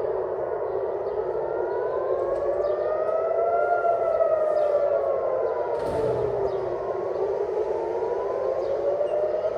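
Civil defense air-raid siren wailing, its pitch rising and falling slowly over several seconds, sounding a warning of an incoming missile attack.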